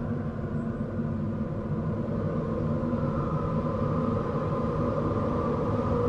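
Horror-style spirit wind sound effect: a steady low rumble of wind with whistling tones that drift slowly in pitch, gradually getting a little louder.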